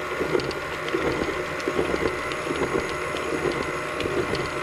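Stand mixer running steadily, its flat beater turning batter in a metal bowl, with a constant motor hum and light irregular clicks.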